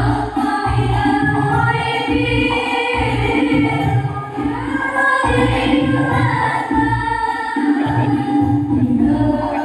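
Song with singing voices over a steady bass beat, played loud through a miniature PA sound system during a sound check.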